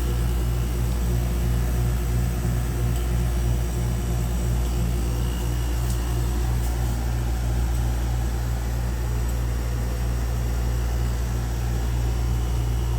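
Winia MPP07CAWC portable air conditioner running with a steady low hum.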